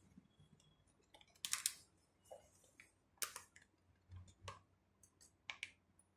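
Faint, irregular taps and clicks of a paintbrush dabbing oil paint onto a stretched canvas on an easel, stippling in a tree's foliage.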